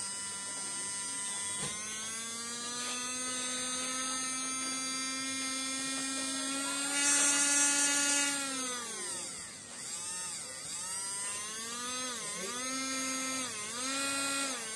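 Small DC motor running on a bench power supply with a steady whine that slows and drops in pitch about nine seconds in. It then picks up again, its pitch dipping unevenly several times near the end. The owner calls the motor half-broken.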